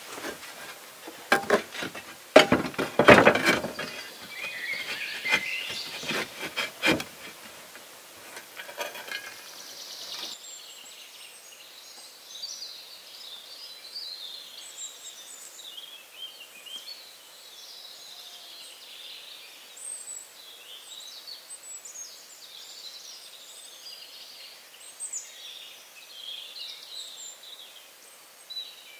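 A run of sharp knocks and thumps from hand-tool work on wood. After about ten seconds they stop and wild birds sing steadily, with short chirps and trills.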